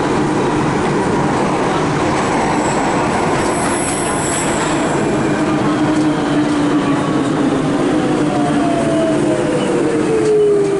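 Cabin noise of a Turin Metro VAL 208 rubber-tyred driverless metro car running in the tunnel: steady rolling roar with a motor hum and a thin high squeal around the middle. In the second half a whine falls steadily in pitch as the train slows for a station.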